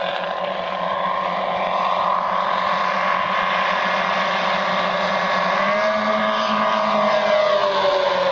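The four 160cc engines of a giant RC model bomber running together in a steady drone as the plane flies by. About five and a half seconds in, the pitch starts falling as it passes.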